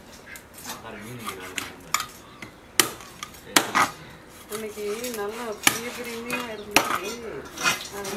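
A heavy cleaver chopping a yellowfin trevally into steaks on a wooden block, with several sharp knocks of the blade striking the wood at irregular intervals.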